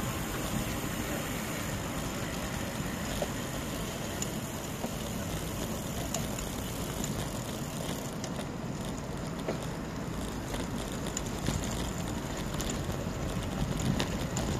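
Steady wind and road noise from riding a road bicycle, wind buffeting the microphone.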